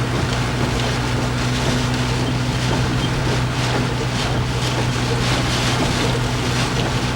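A steady low engine hum under rushing wind and sea noise that swells and falls in surges.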